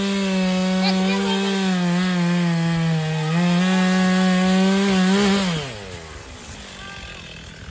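Gas-powered two-stroke chainsaw running at high revs, dipping briefly about three seconds in. About five and a half seconds in the throttle is released and the pitch falls as it drops back to a quiet idle.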